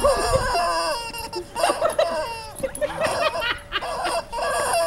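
Rubber chicken dog toy squawking and squealing in a string of short bursts as a dog bites and squeezes it, with one longer held squeal in the first half.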